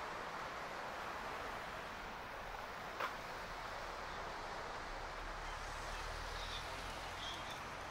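Steady outdoor background noise with a low rumble underneath, a single sharp click about three seconds in, and two faint short chirps near the end.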